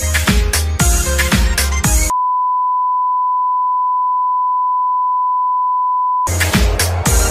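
Music with a steady beat cuts off about two seconds in. A steady, pure test tone of the kind played with broadcast colour bars follows and holds one pitch for about four seconds. The tone stops abruptly and the music comes back in.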